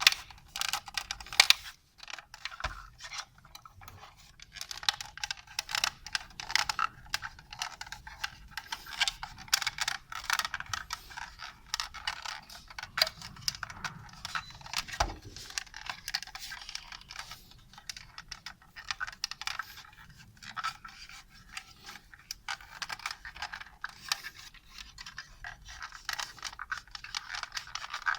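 Hard plastic parts of a monitor stand being handled and worked apart: a dense run of small clicks, taps and scrapes, with a single louder knock about fifteen seconds in.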